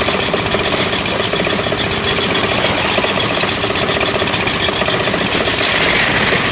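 Concrete mixer's engine running steadily with a fast, even pulse.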